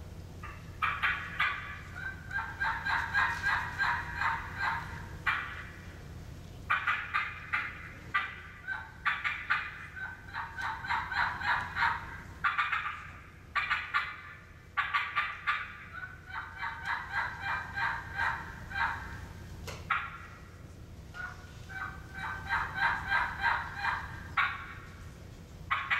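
Human imitation of an excited wild turkey hen on a mouth-blown turkey call, hands cupped at the mouth: fast runs of sharp yelps and cutts, in bursts of a few seconds with short pauses between them.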